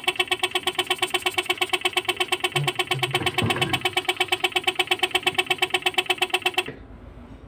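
Homemade air pump, a refrigerator compressor belt-driven by a 775 DC motor, running with a steady pulsing hum of about nine strokes a second. It cuts off suddenly near the end.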